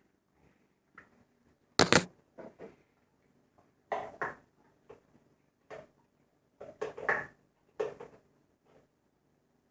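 Dog biting and chewing on a plastic peanut butter bottle: irregular crackles and knocks of hard plastic, the loudest about two seconds in, with further bursts every second or two.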